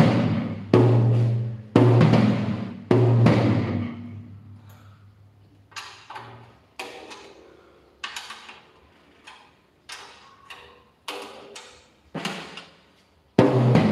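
Drum kit played with wooden sticks: a few loud strokes with a low ringing tone that dies away, then lighter single taps about once a second on the newly fitted 12-inch Remo tom head, then a loud stroke again near the end. The new head is being tried out.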